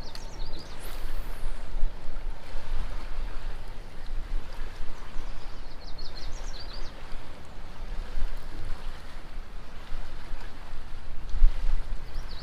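River water running and lapping around a kayak, a steady wash with a low rumble, and a few short high chirps scattered through it.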